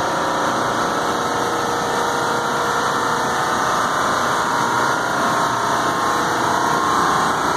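Steady mechanical drone of large commercial split-system air-conditioning equipment with 100-ton compressors running in its equipment room, a faint steady hum riding on top.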